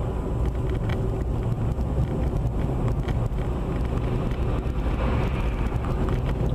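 Steady road and engine noise of a moving car heard from inside the cabin by a dashcam, a low rumble with faint wind noise.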